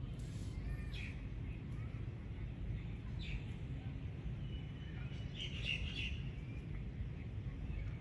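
Common myna giving short calls: one about a second in, another around three seconds, and a cluster of several notes between about five and six seconds, over a steady low background rumble.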